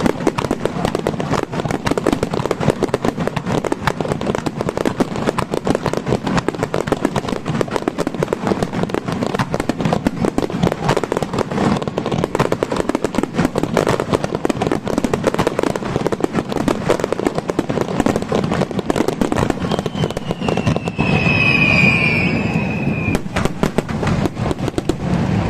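Fireworks display barrage: a rapid, continuous volley of aerial shell bursts and crackling with no gaps. Near the end a high whistling tone cuts through for about two seconds.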